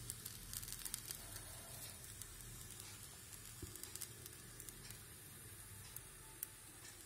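Aloo paratha sizzling faintly on a hot tawa, with small crackles that are thickest in the first second and thin out after.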